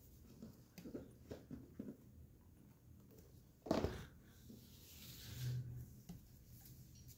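Cardboard board-game box and its inner insert being handled: a few light taps and rustles, then one louder brief cardboard scuff a little before midway as the insert comes out of the box.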